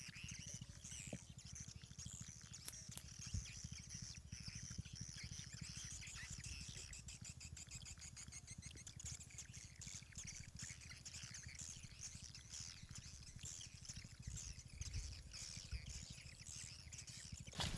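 Faint birds chirping and twittering over a low rumble, with a short louder burst of noise near the end.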